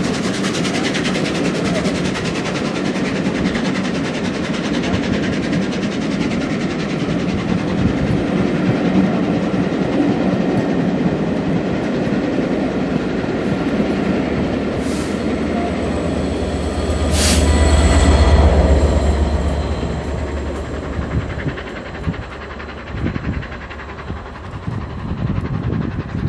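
Rake of vintage Pullman coaches rolling past beneath a bridge: a steady rumble with the clickety-clack of wheels on the rails. A louder low rumble swells for a few seconds about two-thirds of the way through, then the sound thins as the end of the train draws away.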